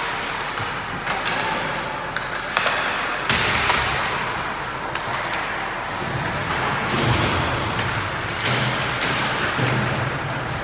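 Ice hockey rink during play: a steady wash of rink noise, with several sharp knocks from sticks and puck hitting the boards.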